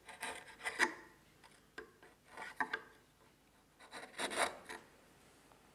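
A sharp chisel paring across the floor of a recess in a wooden block: several short, crisp slicing scrapes as shavings come off, the longest about four seconds in. These are light finishing passes to get the recess floor flat from corner to corner.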